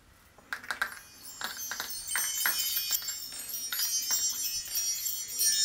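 Magic twinkle sound effect: a few light clicks, then a wind-chime-like shimmer of many high bell tones that swells about two seconds in and keeps sparkling.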